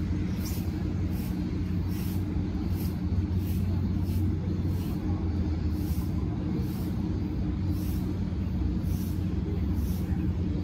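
Steady low mechanical hum, like an idling engine or a running machine, with a faint hiss pulsing about every three-quarters of a second.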